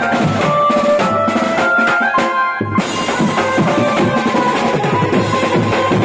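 Live band playing a song: an electronic keyboard melody over snare drums and a bass drum. A little over two seconds in, the drums stop for about half a second, leaving one held keyboard note, then come back in.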